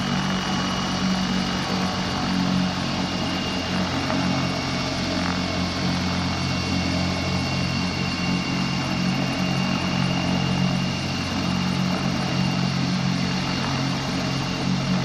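Twin-turbine medical helicopter running on the pad: a steady high turbine whine over a low, even rotor and engine hum.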